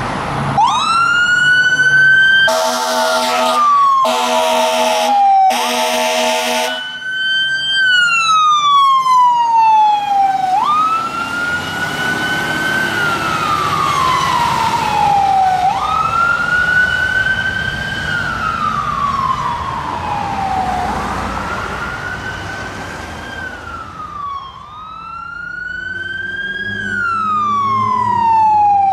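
Fire truck siren winding up quickly and coasting down in long falling wails, about one every five seconds. Three blasts of Hadley air horns, about a second each, cut in during the first several seconds.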